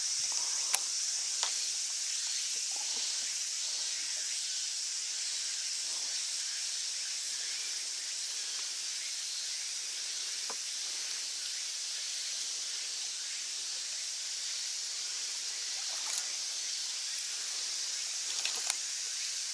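Steady high-pitched chorus of insects, with a few faint short clicks scattered through it.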